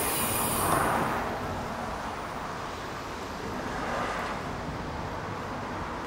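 Mercedes-Benz E350 coupé's V6 engine idling steadily, heard over the open engine bay, with a brief high hiss in the first second.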